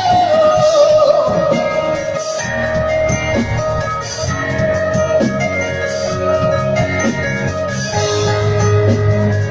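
A live band playing an instrumental passage on keyboard and electric guitars. A long held lead note wavers and slides down over the first couple of seconds, then steady chords continue over a strong, even bass.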